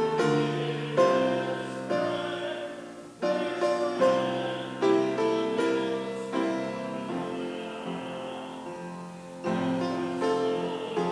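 Piano playing slow, sustained chords, each struck and left to ring and fade before the next.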